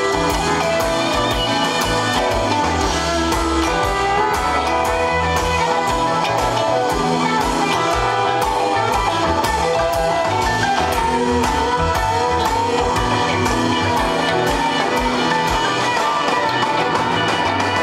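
Live rock band playing through a concert PA: electric guitars, electric bass and drum kit, with a steady drum beat.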